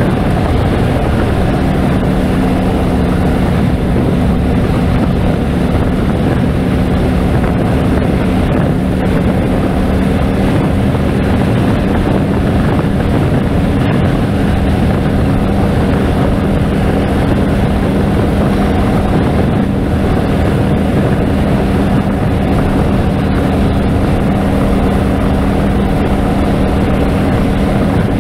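Harley-Davidson Road King's V-twin engine running at a steady cruise on the highway, its even engine note over a constant rush of wind and road noise.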